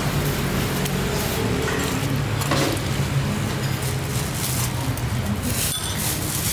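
Steady low engine hum of road traffic, with a few brief clinks and splashes as a wire strainer basket of bean sprouts is dipped and drained in a steel stockpot of broth.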